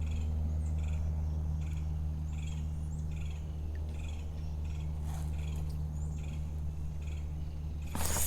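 A steady low hum with evenly spaced pitched lines, like a small motor running, with faint high chirps repeating about twice a second. A brief rush of noise comes near the end.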